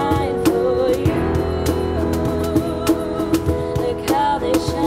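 Two teenage girls singing together, their sustained notes wavering with vibrato, over steadily strummed acoustic guitar.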